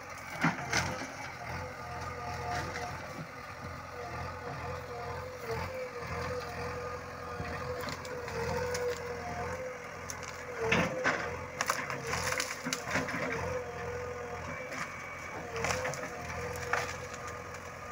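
JCB Xpert backhoe loader's diesel engine running steadily while its backhoe bucket tears through trees and brush. Sharp cracks and snaps of breaking branches come now and then, thickest a little past the middle.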